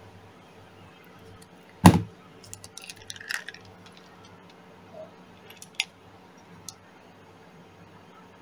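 A sharp knock about two seconds in, then small metal fishing tackle (lead sinkers, beads, snaps) clinking and rattling in a plastic lid as fingers pick through it, followed by a few single clicks.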